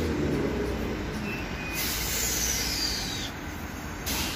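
Perth suburban electric train moving off from the platform: a steady low running rumble with air hiss, a high whine that falls in pitch about two seconds in, and a short burst of air hiss near the end.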